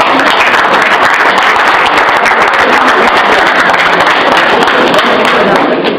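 Crowd applauding: many hands clapping in a dense, steady patter that eases off slightly near the end.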